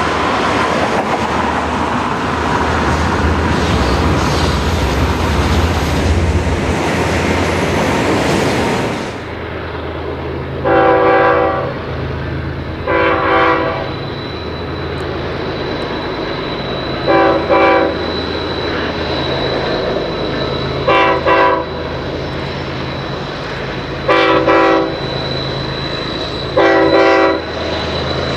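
Diesel freight locomotives passing with a loud rushing rumble of engines and wheels. About a third of the way in this gives way to the steady low drone of diesel locomotives pulling a freight train, with the locomotive's multi-note air horn sounding six short blasts a few seconds apart.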